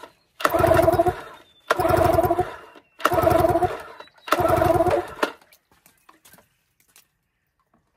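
Recoil pull-starter of a Yamaha 15 hp outboard, pulled hard four times in a row, each pull about a second long, spinning the engine over with both spark plugs out for a compression test on the bottom cylinder. A few faint clicks follow.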